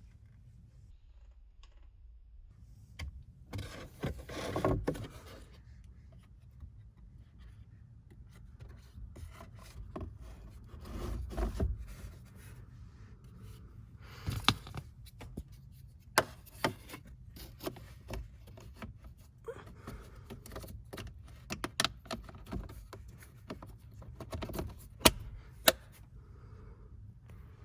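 Plastic parts of a car's cabin air filter housing and the filter being handled: two stretches of scraping and rubbing, then a run of sharp plastic clicks and knocks.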